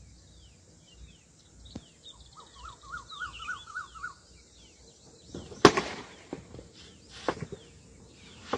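Birds calling with a string of short falling chirps and a warbling run of notes. About five and a half seconds in comes a loud sharp crack, the loudest thing heard, and a smaller crack follows near the end.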